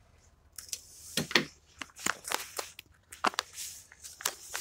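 Irregular crinkles, crackles and clicks of a foil-laminate MRE food pouch being handled and torn open, the loudest about a second and a half in.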